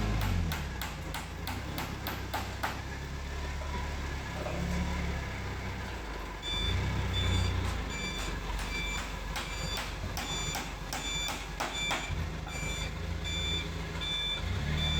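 Heavy machine engine running and revving up and down. From about six seconds in, a reversing alarm beeps steadily, roughly every 0.7 s. A few sharp knocks sound in the first few seconds.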